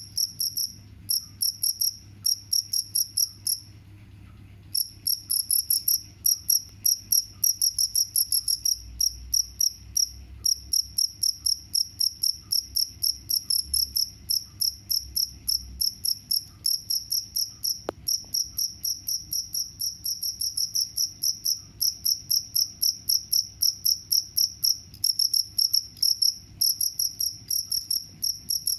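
Cricket chirping steadily, a fast train of short, high-pitched chirps at about four a second, broken by a pause of about a second near the start. A single sharp click about two-thirds of the way through.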